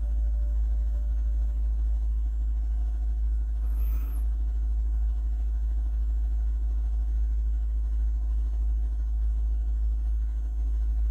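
Steady low hum and rumble of background noise, with a few faint steady tones above it.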